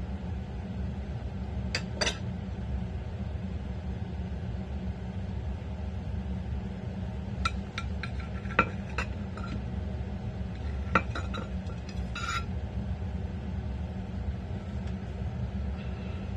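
Light clicks and clinks of food and utensils being handled on a plastic tray and dishes, in a few short clusters, over a steady low hum.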